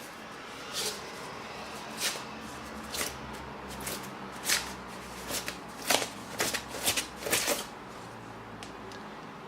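Packaging being handled as a car stereo is taken out of its box, a series of short, irregular rustles and scrapes from plastic wrapping and polystyrene packing blocks. They come most often between about four and eight seconds in.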